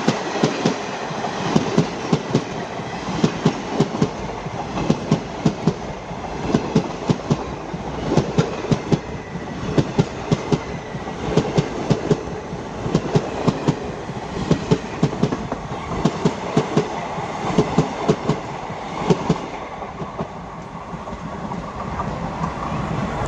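Passenger coaches of a long express train rolling past close by, their wheels clacking over rail joints in quick clusters of beats over a steady rumble. The clacking eases and the rumble fades near the end as the last coach goes by.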